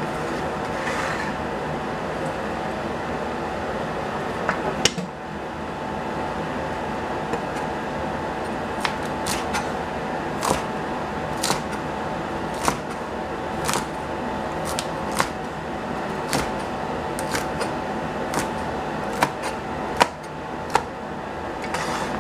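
Chinese cleaver chopping a stacked bundle of long beans on a plastic cutting board: sharp chops at uneven spacing, about one a second, from a few seconds in, over a steady background hum.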